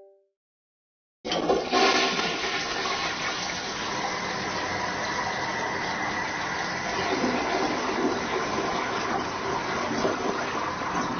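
Toilet flushing: a sudden rush of water starting about a second in, with a strong surge at first, then a steady rushing flow.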